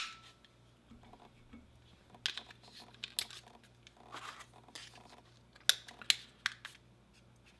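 Small plastic clicks and handling rattles as AAA batteries are fitted into a Zoom H1n handheld recorder's battery tray, a few sharp clicks coming in two clusters with some rustling between.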